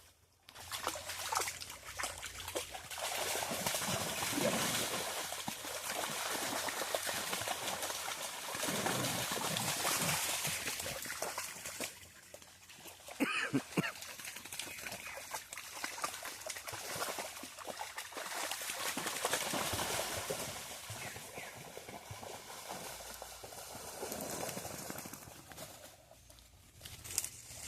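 Steady running water with a noisy, splashing sound; it drops away briefly about twelve seconds in and again near the end.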